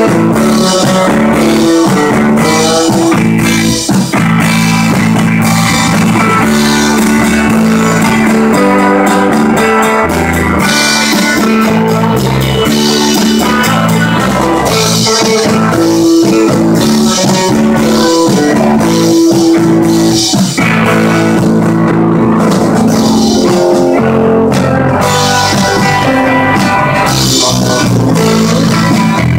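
Live rock band playing loud: electric guitars, bass guitar and drum kit.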